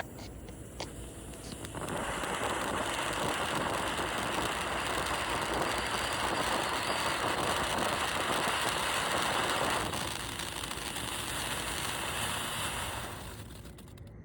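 Hyper Volcano cone ground fountain firework spraying with a steady, loud hiss. It starts about two seconds in, eases a little near ten seconds and dies away near the end, with a few faint ticks before it starts.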